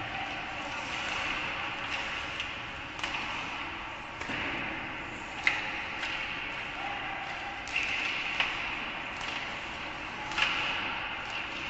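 Ice hockey play in an arena: sharp clacks of sticks hitting the puck, about six of them, the loudest about halfway through, over a steady hiss of skates on the ice and arena background.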